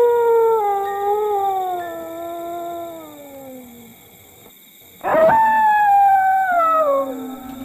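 Two long canine howls, each sliding down in pitch: the first lasts about four seconds, the second starts about five seconds in, pitched higher and shorter. A low steady drone comes in near the end.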